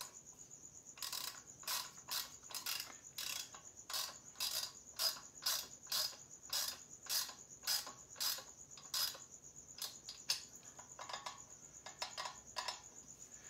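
Ratchet wrench clicking in short strokes, about two a second, as the axle nut cover adapter screw is tightened into the motorcycle's front axle; it pauses near the end, then gives a few more strokes. Crickets chirp steadily behind it.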